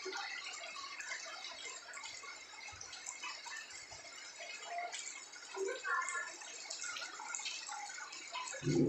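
Heavy rain falling steadily, a dense hiss of drops with individual drips and splashes.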